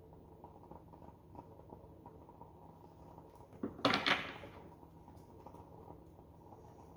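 A short handling clatter, several quick knocks and rustles over about half a second, roughly four seconds in, over a faint steady hum.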